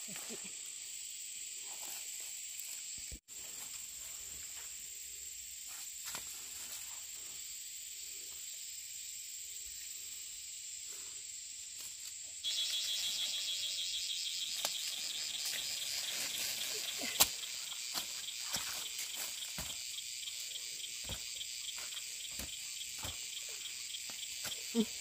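Insects chirring in a steady high drone. About twelve seconds in, a second, louder insect joins with a fast pulsing trill, and a few light clicks or rustles are scattered through.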